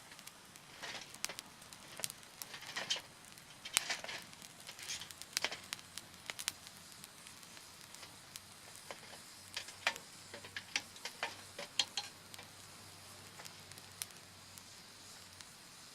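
Small wood campfire crackling, with irregular sharp pops and brief hisses, busier in the first half and again around ten to twelve seconds in.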